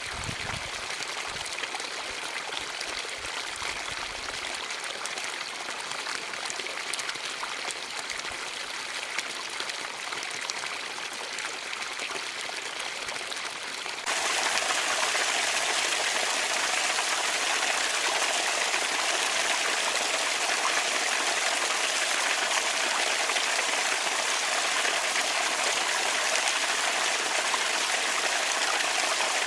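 Water trickling and splashing from a bamboo water fountain. About halfway through, the sound jumps abruptly louder and brighter into a steadier rush of water.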